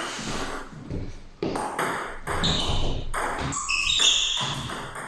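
Table tennis rally: the ball clicking off the bats and pinging off the table, a quick irregular run of hits, several with a short high ring.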